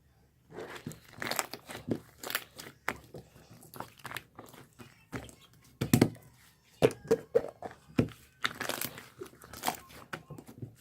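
Irregular crinkling and crackling of something being handled, with sharp taps and knocks, starting about half a second in.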